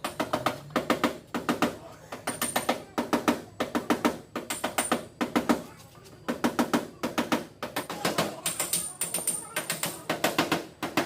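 Rapid light taps of a hammer and tap-down tool on a Mazda CX-9's sheet-metal body panel, coming in bursts of several strikes with short pauses between: the tapping-down stage of paintless dent repair.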